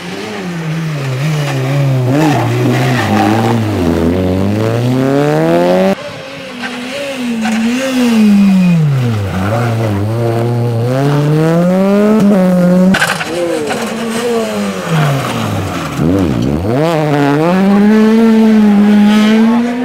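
Rally car engine revving hard, its pitch repeatedly dropping and climbing again as the car brakes, changes gear and accelerates through a tight junction. Near the end it pulls away with the pitch rising steadily. The car seen making the sound is a Renault Twingo rally car.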